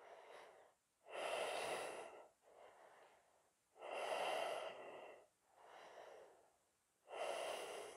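A man breathing slowly and deeply while holding a yoga stretch. Three longer, louder breaths come about three seconds apart, with softer breaths between them.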